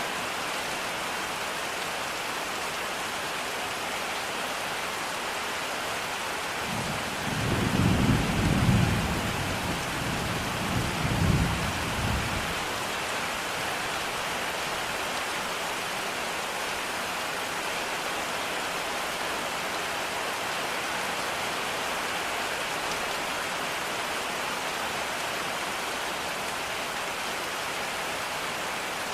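Steady rain falling throughout, with a low rumble of thunder rolling in about seven seconds in and fading out about five seconds later, swelling twice.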